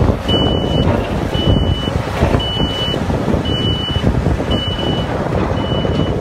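A heavy machine's back-up alarm sounds a single high tone about once a second, growing fainter near the end. Under it is the steady low rumble of a large hydraulic excavator's diesel engine working broken rock.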